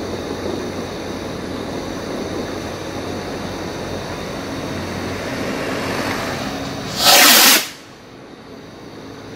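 Firework rocket launching: a short, loud whoosh of just over half a second, about seven seconds in. It comes after several seconds of steady rushing noise and is followed by a quieter hiss as the rocket climbs.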